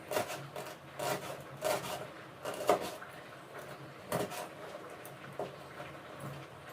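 Knife slicing a capsicum into long strips on a chopping board: about six separate chopping knocks at an uneven pace, roughly one a second.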